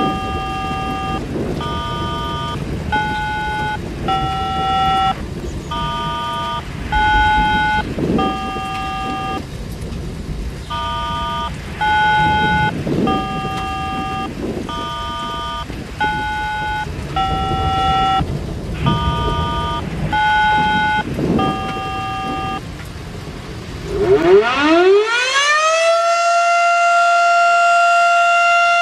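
A run of steady electronic notes, each about a second long and changing pitch from note to note, over the noise of a thunderstorm. About 24 seconds in, an outdoor warning siren sounding as the evening 6:00 whistle winds up quickly and settles into a steady, loud wail.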